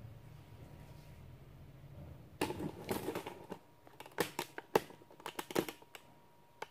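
Brown kraft pattern paper rustling and crinkling in bursts as it is handled and positioned, starting about two seconds in, with a few sharp clicks among the rustles.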